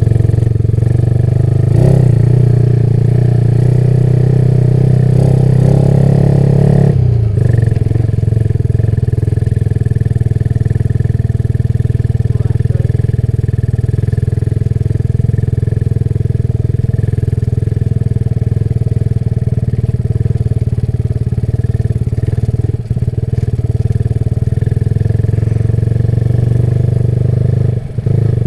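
Motorcycle engine running while riding. The engine note is stronger at first, drops sharply about seven seconds in as the throttle eases, then holds steady.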